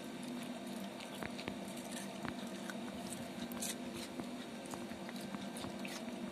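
A cat licking and chewing a chunk of watermelon: faint, scattered small wet clicks and smacks over a steady low hum.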